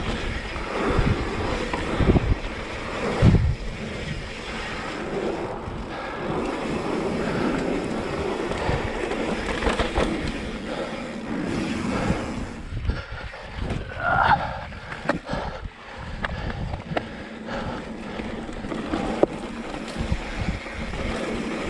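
Yeti mountain bike descending a dirt singletrack: tyres rolling over packed dirt, with the bike knocking and rattling over bumps, the heaviest knocks a couple of seconds in, under steady wind noise on the microphone.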